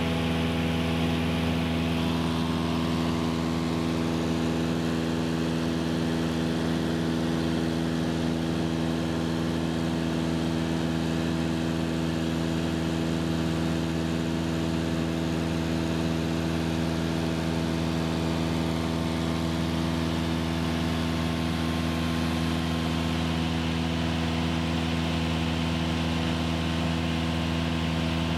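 Single-engine Cessna's piston engine and propeller in steady cruise, heard from inside the cabin as an even, unchanging drone.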